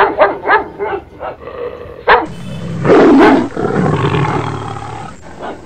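A puppy barks about five times in quick succession. Then, from about two seconds in, a loud tiger roar and growl runs for about three seconds.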